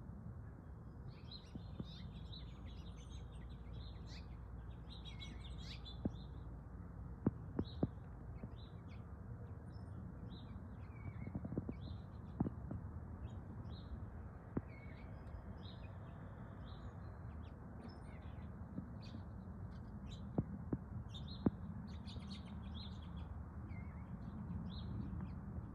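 Small birds chirping and calling again and again over a steady low background rumble, with a few sharp clicks scattered through.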